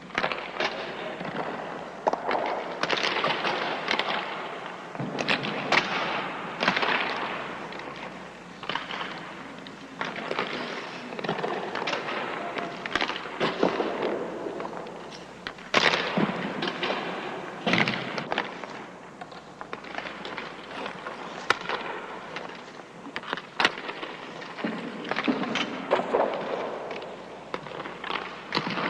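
Hockey shots in an indoor ice arena: irregular sharp cracks of stick and puck impacts, echoing, over continuous arena noise.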